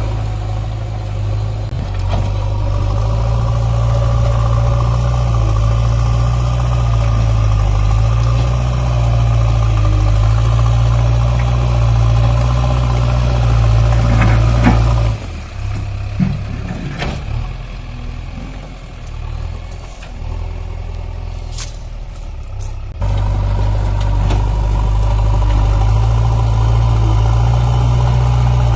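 Backhoe loader's diesel engine running with a steady deep hum. About halfway through the sound drops abruptly to a quieter, more uneven engine noise with a few clicks, then comes back at full level several seconds later.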